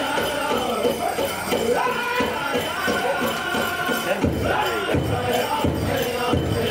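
Powwow drum group singing a prairie chicken dance song in chorus over the big drum, with jingling bells. The drum strokes turn heavier about four seconds in.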